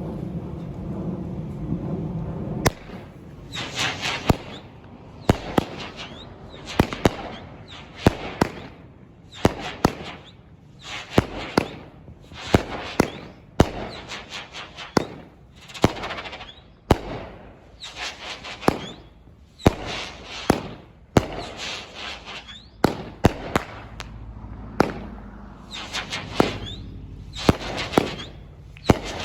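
Aerial fireworks in a finale: sharp bangs about every second and a half, each followed by a crackling fizz. A low rumble fills the first couple of seconds before the first bang.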